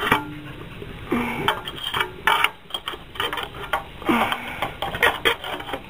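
Metal tools and engine parts of a small Briggs & Stratton engine clinking and scraping together in irregular clatters as it is taken apart.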